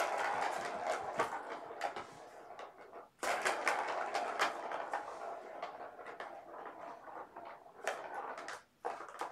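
Ball rolling around the plastic track of a circular cat track toy, a continuous rattling rumble that starts suddenly, fades as the ball slows, and is set going again about three seconds in.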